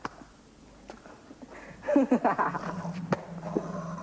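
A person's voice making short wordless sounds from about halfway through, after a quieter first half, with a few faint knocks.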